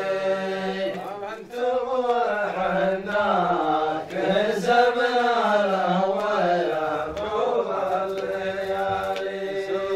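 A man chanting a line of Arabic poetry unaccompanied, drawing the syllables out into long held notes that bend slowly up and down. The chant ends about ten seconds in.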